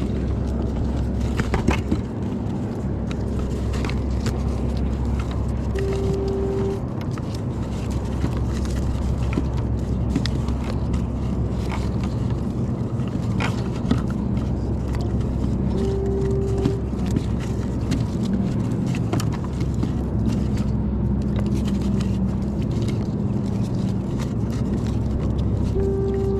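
An engine running steadily with a low, even drone. A short steady tone sounds about every ten seconds.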